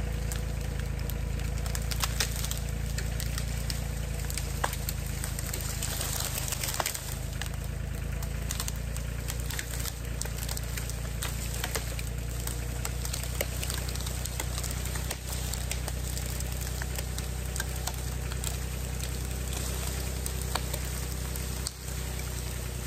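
John Deere 3033R tractor's three-cylinder diesel engine running steadily while it pulls a downed tree out on a tow strap, with branches and brush crackling and snapping as the tree breaks free and drags through the undergrowth.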